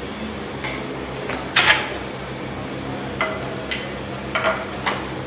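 Flat metal serving scoop scraping and clinking against a large steel serving tray and steel plates as rice is dished out: a string of short clanks and scrapes, the loudest about one and a half seconds in, over a steady low hum.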